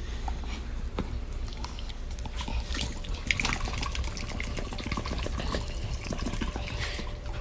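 Water splashing and sloshing in many small, irregular splashes and clicks over a low rumble.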